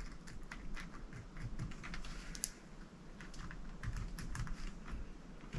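Faint, irregular light clicks and taps of small metal parts as a drag star washer is fitted onto a baitcasting reel's drag shaft by hand.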